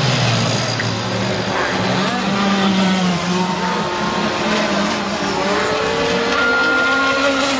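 Several 26–35cc two-stroke petrol engines of radio-control racing boats running at high revs, their overlapping engine notes sliding up and down in pitch as the boats race past and corner.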